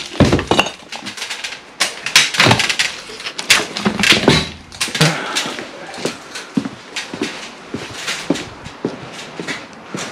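Old bricks and rubble from a demolished wall knocking and clinking as they are handled and carried, with footsteps: a run of irregular sharp knocks and clacks.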